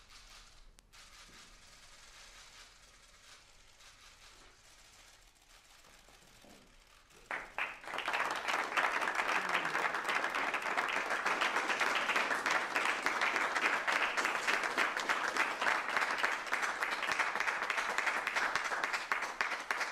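Audience applauding: a quiet stretch, then a few scattered claps about seven seconds in that swell at once into steady, dense clapping, which starts to fade near the end.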